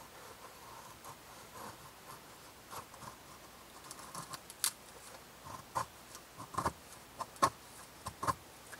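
Knife blade shaving curls from a split stick of dry wood to make a feather stick: a series of short scraping cuts, sparse at first and then louder and quicker in the second half.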